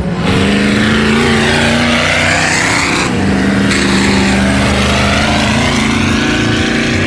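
Engine of a modified racing tractor running hard as it drives past close by, a steady low note throughout. A second tractor can be heard further off.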